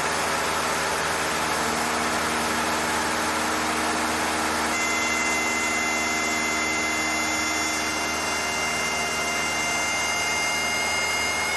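Cessna 152's four-cylinder Lycoming engine running steadily at high power during a power-on stall practice. About five seconds in, the stall warning horn starts as a steady high-pitched tone and keeps sounding, the sign that the wing is nearing the stall.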